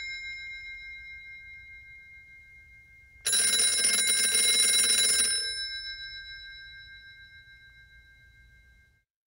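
Classic telephone bell ringing: the last ring dying away, then one more ring of about two seconds starting about three seconds in, its bell tones ringing on and fading before cutting off near the end.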